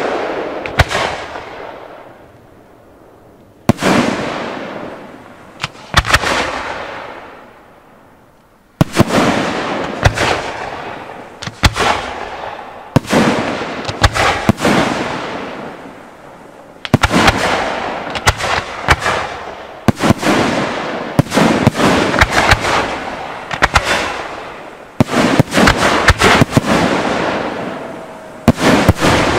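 Aerial firework shells bursting one after another, each sharp bang followed by a long fading echo. After two short lulls in the first nine seconds, the bursts come thick and fast, roughly one a second and often overlapping.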